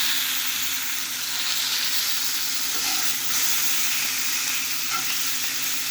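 Cornish hen pieces searing in a very hot cast iron pan: a steady sizzle, a little stronger at the start.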